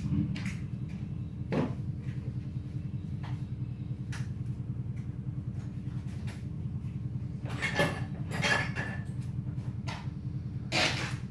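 A steady low hum, with scattered knocks and clatters: a longer rattling clatter about eight seconds in and another knock near the end.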